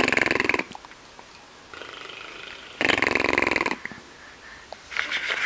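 A baby making a buzzy, rattling non-word sound twice, at the start and again about three seconds in, the second one longer.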